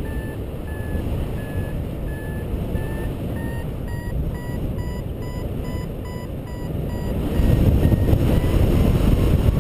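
Paraglider variometer beeping in short, regular tones about twice a second, rising slightly in pitch and quickening: the climb tone that signals lift. Wind rushes on the microphone throughout, louder in the last two seconds as the beeps fade.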